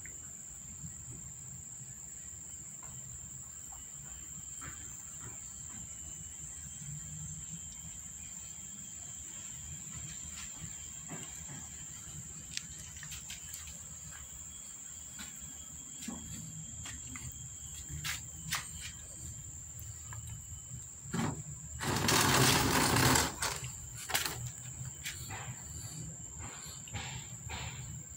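A steady high-pitched insect drone, like crickets, runs throughout, with faint scattered clicks and rustles. About 22 seconds in, a loud rushing noise lasting just over a second is the loudest sound.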